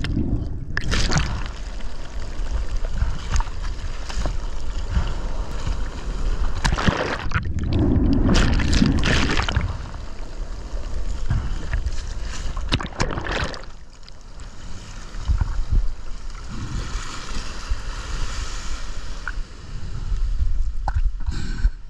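Rough surf churning over a shallow lava reef, whitewater splashing and gurgling around a camera held at the waterline, with louder surges now and then.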